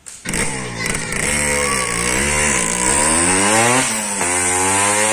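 A small motorcycle engine running close by. Its pitch rises and falls as it is throttled, drops sharply about four seconds in, then climbs steadily again.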